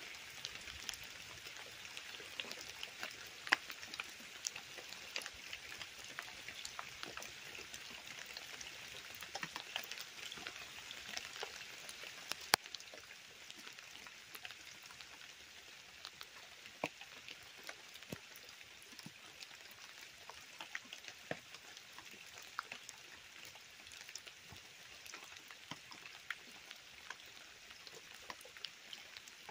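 Steady rain falling, with many separate drops tapping close by and a couple of louder taps, over shallow muddy runoff water running across dead leaves.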